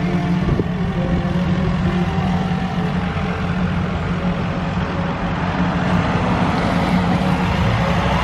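An engine running steadily at a constant, low hum.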